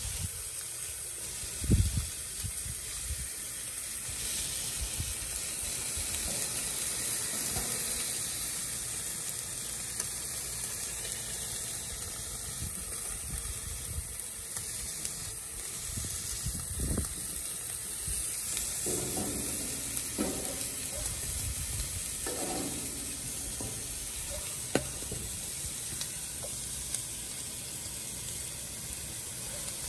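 Chicken pieces sizzling steadily on a hot Blackstone flat-top griddle, with a sharp knock about two seconds in.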